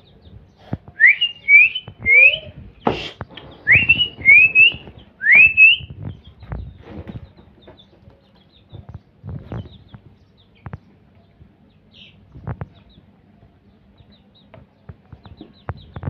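Young chickens peeping: about seven loud, rising peeps in quick pairs and threes in the first half, with one sharp knock among them. After that, only scattered light taps.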